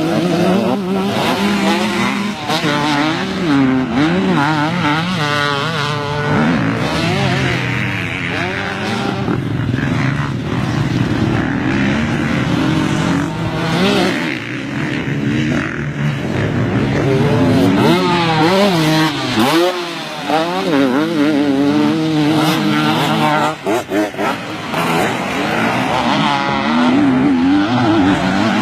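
KTM 150 two-stroke motocross bike engine revving hard, its pitch climbing and dropping again and again as the throttle is opened and shut and the gears change.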